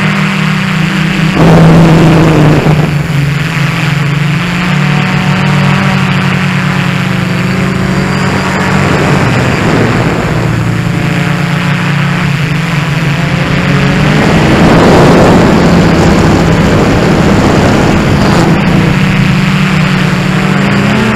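DJI Flamewheel F450 quadcopter's four electric motors and propellers heard from on board: a loud, steady buzzing drone whose pitch shifts a little as the throttle changes. The buzz swells with louder rushing noise about a second and a half in and again around fourteen seconds in.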